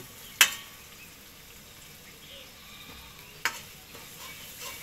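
Chicken and onions frying in a kadai, a faint steady sizzle, with a metal spatula knocking sharply against the pan twice, about half a second in and again about three and a half seconds in.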